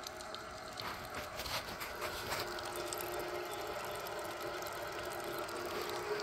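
Rapid Rain hose-reel traveler irrigator with water running through its turbine drive: a steady whir with a few faint clicks from the gears. The drive is turning under water pressure.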